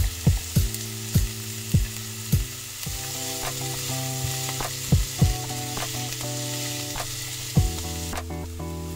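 Chopped onions sizzling in oil in a nonstick frying pan, with a spatula stirring them and a few sharp taps against the pan. Background music plays underneath.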